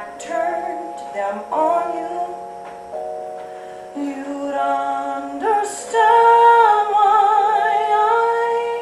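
Live musical theatre song: a woman sings over sustained instrumental chords, swelling into a loud, long held note with vibrato in the second half.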